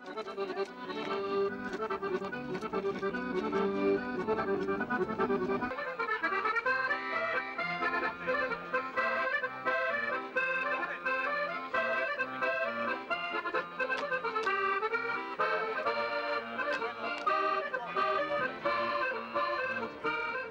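Accordion playing a folk dance tune with quickly changing notes; the low accompaniment drops out about six seconds in.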